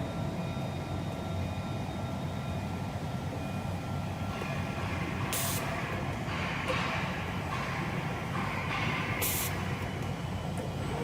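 CNC glass-cutting machine running: a steady motor hum with a few steady tones over it. Two short hisses of compressed air come about five and nine seconds in.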